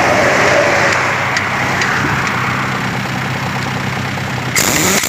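Heavy pneumatic impact wrench running on a bus's wheel nuts, a steady mechanical run over a low engine hum. Just before the end the sound turns louder and hissier.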